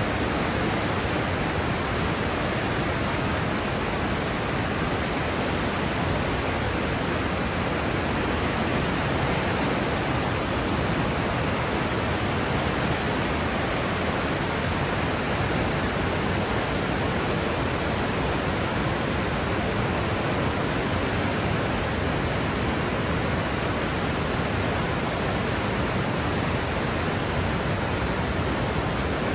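Steady rushing roar of the Niagara River's class 6 whitewater rapids, unchanging throughout.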